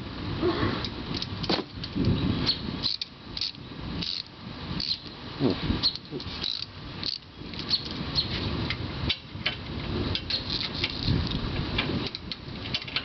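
Metal hand tools clinking and knocking irregularly, with rustling handling noise, as a socket and swivel extension are handled and fitted.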